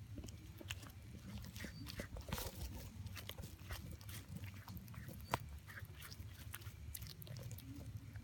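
A kitten chewing and biting into a chunk of raw pangasius fish, giving irregular sharp clicks and crunches, over a low steady rumble.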